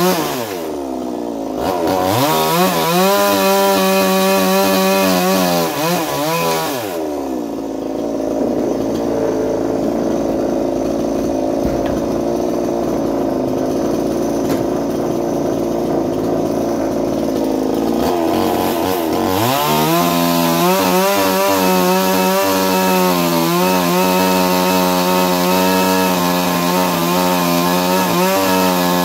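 Chinese-made 45cc two-stroke chainsaw with a ported cylinder, at full throttle. Near the start the engine drops in speed for a moment and comes back up. For about eleven seconds in the middle it runs at a lower, rougher pitch, pulled down under load as it cuts through wood. It then rises back to a steady high whine, revving free.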